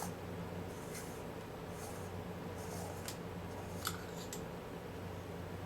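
Faint scratchy ticks and small clicks of the threaded front optic group being unscrewed from a Beseler Topcon 58 mm f/1.4 lens, with a sharper click about four seconds in. A steady low hum runs underneath.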